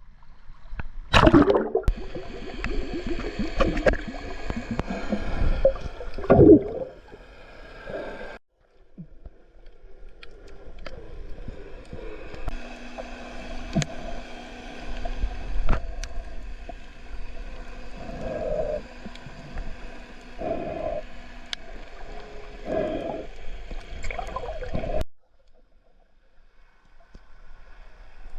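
Gurgling, sloshing water, muffled as if recorded with the camera underwater while snorkelling, with a couple of loud knocks in the first seven seconds. The sound cuts off abruptly about a third of the way in and again near the end.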